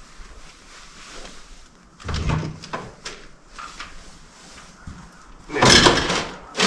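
Tractor parts being shifted by hand around the battery: a heavy thud with clicks about two seconds in, a few lighter knocks, then a longer scraping clatter near the end, the loudest sound.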